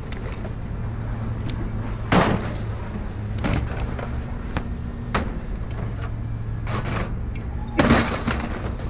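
Scrap items being handled and dropped: a handful of knocks and clatters, the loudest about two seconds in and near the end, over a steady low vehicle-engine hum.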